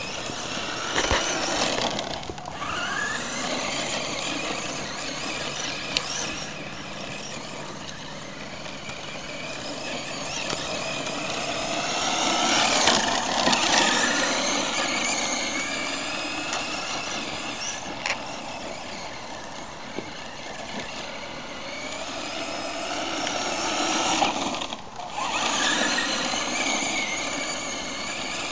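Electric motor and drivetrain of a 1/10 HBX Bonzer 4WD RC monster truck (7.2 V) whining, its pitch rising and falling as it speeds up and slows down. It is loudest about halfway through.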